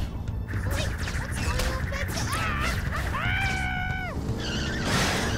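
Cartoon action soundtrack: background music under a run of hit and crash sound effects. A short high pitched tone slides up and holds about three seconds in, and a loud rushing whoosh comes near the end as an energy blast sweeps past.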